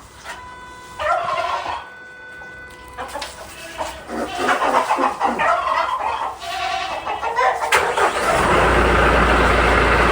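Poultry calling in short bursts over quiet farmyard sound. About eight seconds in, a much louder engine starts running close by, with a steady deep hum.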